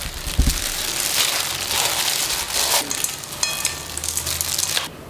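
A hand in a crinkling plastic glove tosses a wet glass noodle salad in a glass bowl, with leaves and noodles rustling and squishing. The sound stops abruptly near the end.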